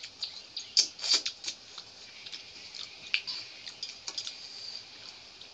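Wet clicks and smacks of people eating rice and fish curry with their hands from steel plates: fingers squishing rice, chewing and lip smacks, with the sharpest clicks about a second in and again near three seconds.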